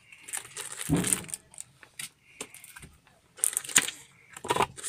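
Plastic wrapping crinkling and paper rustling as packed items and a card are handled in a cardboard box, with a thump about a second in and louder rustles near the end.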